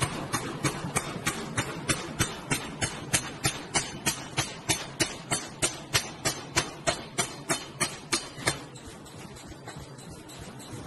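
Hydraulic forging press working as it squashes a red-hot steel billet: a sharp, even clicking, about three and a half a second, over a steady low machine hum. The clicking stops about eight and a half seconds in, leaving the hum.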